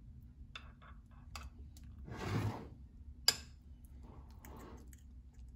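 Metal spoon spreading sour cream in a glass baking dish: light clicks and soft scraping, with a brief soft swell of noise about two seconds in and one sharp clink of the spoon on the glass a second later.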